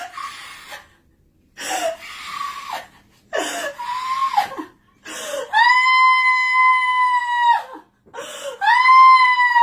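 A woman screaming. First come three ragged, breathy cries, then a long, high, steady scream held for about two seconds. A second scream begins near the end.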